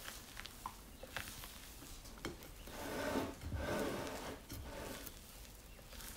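Wooden spatula folding meringue into sponge-cake batter in a glass bowl: soft wet squelching and scraping that swells about halfway through, with scattered light clicks of the spatula against the glass.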